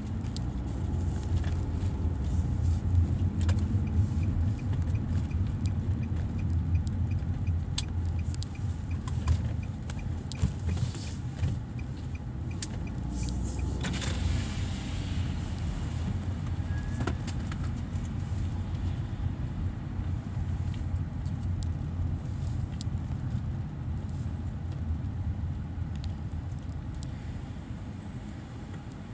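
Car engine running at low speed, heard from inside the cabin as a steady low rumble, with a faint regular ticking through the first half.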